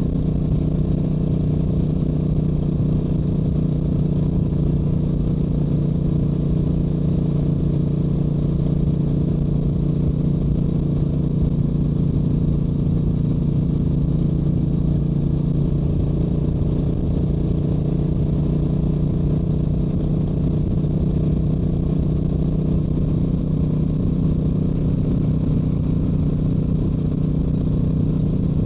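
Yamaha YZF-R7 with its stock exhaust and 689 cc parallel-twin engine, running at a steady speed. The engine drone holds one even pitch throughout, under a low rush of riding wind on the microphone.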